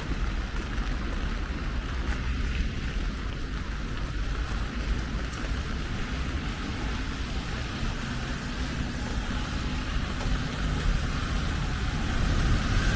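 Steady hiss of light rain, with a low rumble underneath that grows a little louder near the end.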